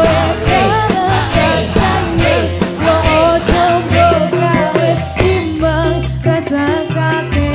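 Live dangdut koplo band playing: a bending lead melody over bass and a steady drum beat.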